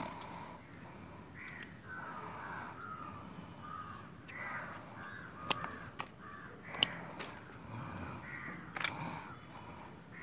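Birds calling over and over, short calls repeating through the whole stretch, with a few sharp clicks, the loudest about seven seconds in.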